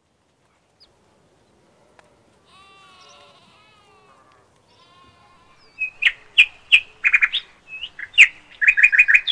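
A faint wavering bleat, like a goat's, then a bird calling loudly in short, sharp chirps, ending in a quick run of about five.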